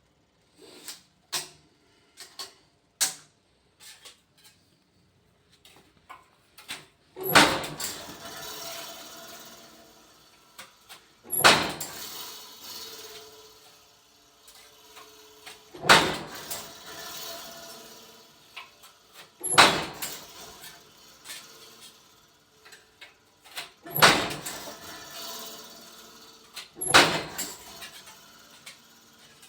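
Light clicks and knocks, then six heavy strikes on sheet metal about four seconds apart, each followed by a ringing, rattling decay as the sheet settles.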